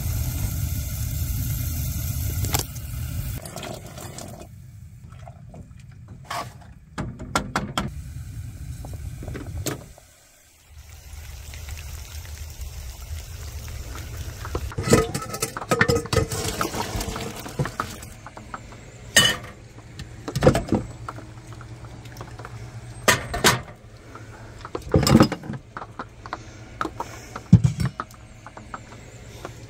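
Liquid bubbling in a cooking pot, then a steady hiss of water. After that come a series of sharp knocks and clanks of metal pots and utensils at a kitchen sink.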